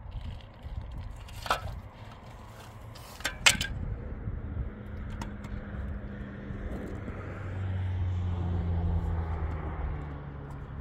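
A few sharp knocks, then a steady low engine hum that grows louder about two-thirds of the way through.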